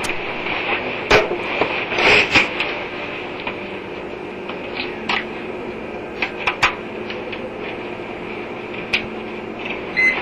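A steady mechanical hum with scattered clicks and knocks from hands and tools working on a furnace, and a short electronic beep near the end.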